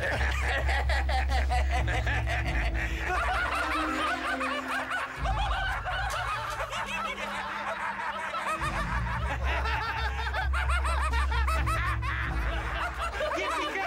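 Two men laughing excitedly together over background music with sustained low bass notes.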